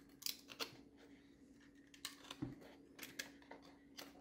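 Faint scattered clicks and small handling noises, about seven or eight in all, as the exposed strands of a woofer's burned voice-coil lead wire are twisted together by hand, over a faint steady hum.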